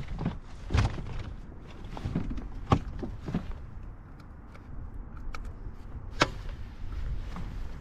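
A handful of sharp knocks and bumps from a landed smallmouth bass and gear being handled in a kayak, over a low wind rumble on the microphone.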